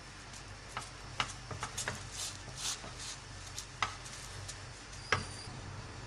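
Scattered light clicks and scrapes of kitchen handling at a non-stick pan as a pita bread finishes cooking over low heat, with a steady low hum underneath. The sharpest click comes about five seconds in.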